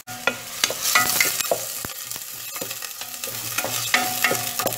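Chopped onions sizzling in very hot olive oil, with a wooden spoon scraping and knocking against the pot as they are stirred.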